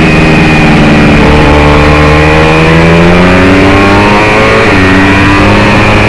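Small single-cylinder race motorcycle engine, loud and heard from on board the bike, pulling hard under acceleration: its pitch climbs steadily and drops once at an upshift near five seconds in.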